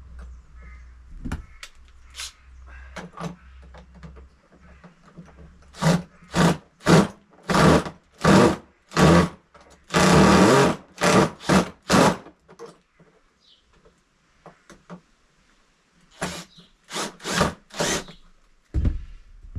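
A power drill-driver runs in a string of short bursts, about a dozen, with one longer run of about a second in the middle. It is driving screws to fasten a replacement hinge.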